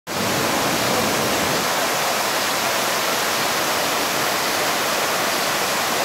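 Düden Waterfall pouring into its plunge pool: a steady, even rush of falling water.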